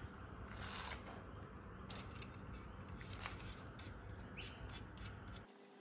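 Faint metal clicks and light scraping as steel nuts are turned finger-tight onto a Mitsubishi 4G64's connecting-rod bolts by hand, over a low steady background rumble that stops about five and a half seconds in.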